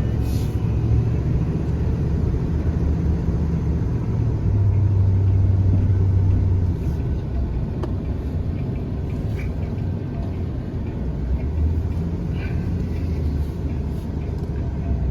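Car engine and road rumble while driving, a steady low hum that eases off about seven seconds in as the car slows.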